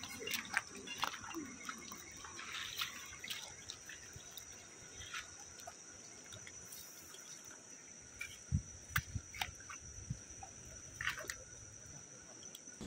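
Faint water dripping and trickling, with scattered small clicks and ticks, a few low knocks around the middle, and a steady high-pitched tone in the background.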